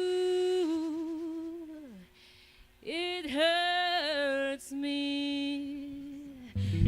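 Unaccompanied blues vocal: one voice holding long, wavering notes in two phrases, with a short pause about two seconds in. Just before the end the band comes back in with a loud electric guitar and bass chord.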